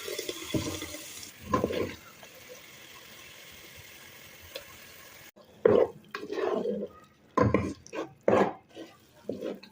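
A brief rush of running or pouring water, then a faint steady hiss. From about halfway in come several loud, short, voice-like sounds.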